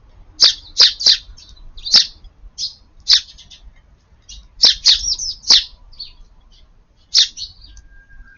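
Eurasian tree sparrows chirping: short, sharp, high chirps in quick clusters of two to four, with quieter stretches between.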